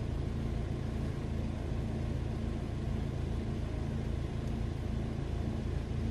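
Car engine idling steadily, heard from inside the stopped car's cabin.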